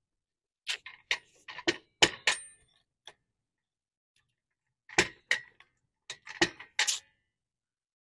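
Metal clicks and knocks from a car jack being worked to lift the car, in two clusters of several clicks each, a couple of seconds apart.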